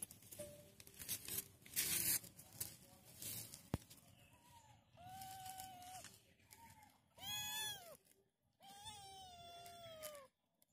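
Kitten meowing: about five high meows in the second half, the last one long and falling in pitch. Some rustling and a sharp click come before the meows.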